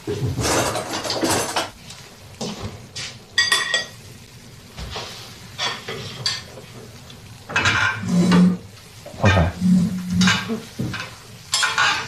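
Dishes and cutlery clattering as plates and utensils are handled and set down, in a string of separate knocks and clinks, with one bright ringing clink about three and a half seconds in.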